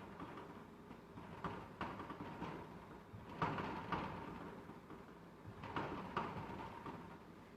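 Rattling knocks coming in pairs about every two seconds, each dying away over about half a second.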